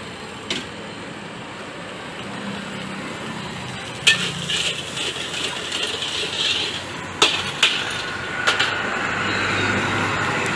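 Long metal spatula clinking and scraping against a steel wok while veg Manchurian is stir-fried, with about half a dozen sharp clinks spread through and a run of scraping around the middle, over a steady rushing background noise.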